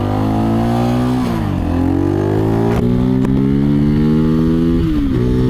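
Mutt DRK-01 250's single-cylinder engine pulling away under acceleration, its pitch climbing steadily and dropping twice as the rider shifts up a gear: about a second and a half in and again near the end.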